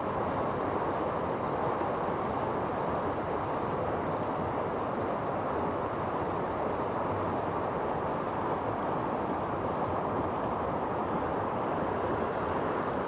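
Steady rushing of river water running fast over a shallow riffle.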